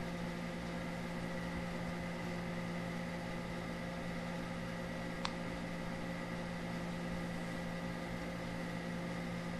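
Steady low electrical hum over a faint hiss, with a single sharp click about five seconds in.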